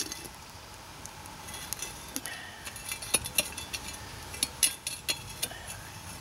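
Charcoal briquettes clinking and scraping against a metal folding shovel and the stainless steel mucket's lid as coals are laid on top of the pot: a run of light, irregular clinks, loudest about three and four and a half seconds in.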